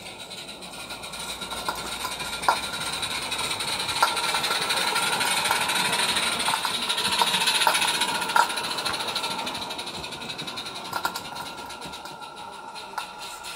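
16mm-scale model steam locomotive and its coaches running on garden-railway track: a fast, even running beat with sharp clicks of wheels over rail joints and points, growing louder as the train passes close and then fading.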